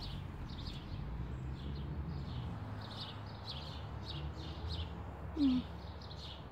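Small birds chirping repeatedly in short, high, downward-sweeping notes, a few each second, over a steady low rumble. About five and a half seconds in, a brief low falling sound is the loudest thing heard.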